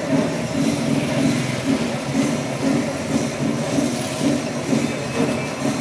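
A large engine running steadily, with a low throb that pulses about four times a second.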